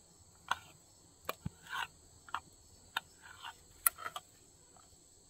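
Steady high trilling of night insects such as crickets, with scattered sharp clicks and a few short rustles over it.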